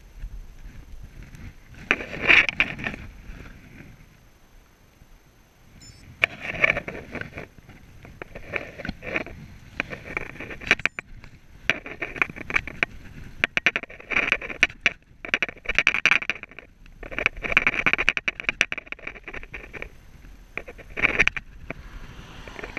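Bicycle ride heard from a handlebar-mounted camera: irregular rattling and knocking from the bike and mount over the uneven path, with bursts of noise. There is a louder clatter about two seconds in and a quieter stretch a few seconds later.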